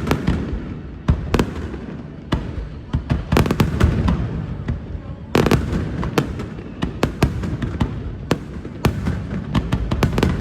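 Fireworks display: aerial shells bursting in a rapid, irregular series of sharp bangs and crackles over a continuous low rumble.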